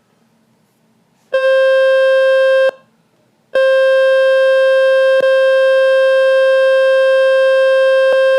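Speaker-cleaning tone from the Fix My Speaker website, meant to shake water and dust out of a phone speaker: a loud, steady, buzzy mid-pitched tone that plays for about a second and a half, stops briefly, then starts again and holds for about five seconds, with small clicks where it starts and stops.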